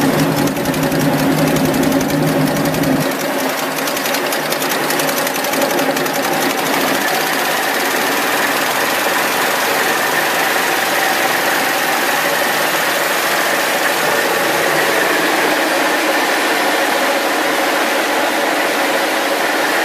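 An engine running with a fast, even clatter. About three seconds in, the deep part of the sound drops away, leaving a steady hiss with a faint high whine.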